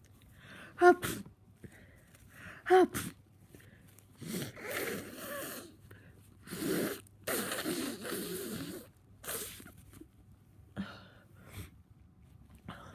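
Two sharp, loud human sneezes about two seconds apart, part of a sneezing fit brought on by a head cold. They are followed by several seconds of rough, noisy breathing and a few smaller bursts.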